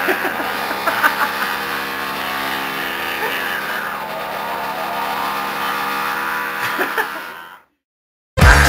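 A man's voice imitating an electric drill: a long, steady, buzzing whine held for about seven and a half seconds, then cut off suddenly. Music comes in just before the end.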